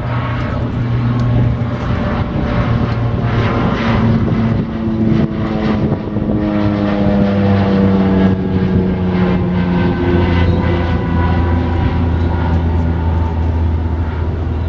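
An engine drones steadily, with its pitch slowly falling over several seconds.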